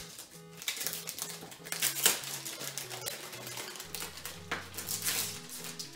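Packaging of a boxed enamel pin being handled and opened, rustling and clicking in quick irregular strokes, the sharpest about two seconds in. Soft background music plays underneath.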